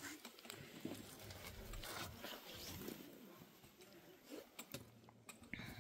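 Faint scuffs and occasional sharp taps of shoes and walking sticks on rock as people climb down over boulders.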